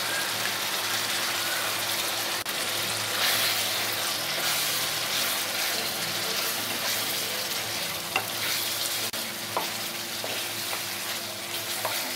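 Chicken pieces and freshly added tahini sizzling in a hot frying pan while a spatula stirs them, with a few light spatula taps against the pan about two-thirds of the way in.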